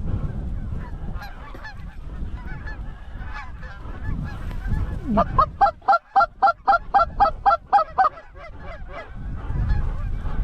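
Canada geese honking and clucking as a flock comes in. About five seconds in, a loud, fast, even run of about a dozen clucks lasts some three seconds.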